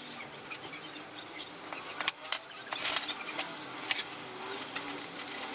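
Large scissors cutting through nylon parachute harness webbing: scattered sharp snips, scrapes and clicks, with the straps rustling and metal hardware knocking as they are handled.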